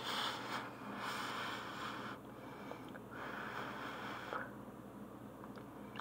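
A person breathing heavily through the nose close to the microphone: three breaths of about a second each, with short gaps between.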